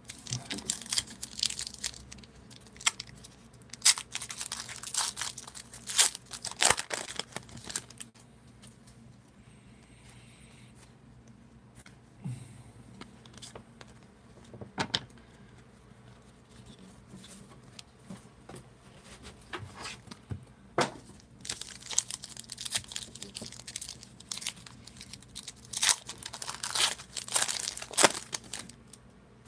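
Foil trading-card pack wrappers being torn open and crinkled in two spells, one in the first few seconds and another from about two-thirds of the way through to near the end. Between the two spells it is quieter, with scattered light clicks and rustles of cards being handled.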